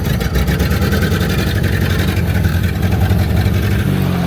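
A vehicle engine running steadily under power, a low, rapidly pulsing drone.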